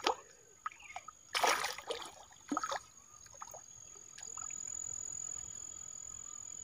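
A small fish thrashing in a lift net in shallow muddy water, making a few sudden splashes and slaps in the first three seconds, the biggest about a second and a half in. From about four seconds in, a steady high insect trill like crickets comes in.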